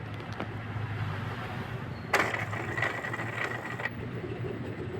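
Inkjet printer mechanism running briefly about two seconds in: a motor whine with mechanical rattle for under two seconds, over a steady low hum.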